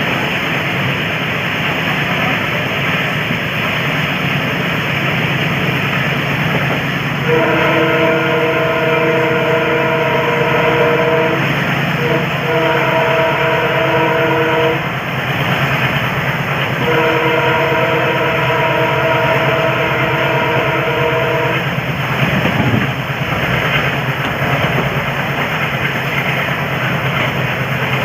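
WDM3D diesel locomotive sounding its multi-tone air horn in three long blasts, the middle one shorter, over the steady rumble of the moving train.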